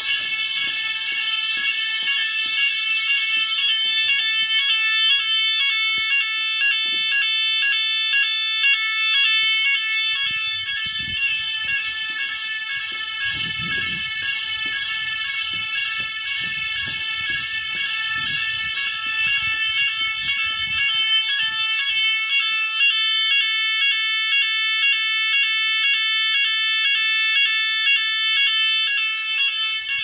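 Fire alarm sounders of a type 4 alarm system (Son'Écla panel and Roshni sounders) sounding the evacuation signal: a loud, high, rapidly pulsing multi-tone alarm that runs without a break.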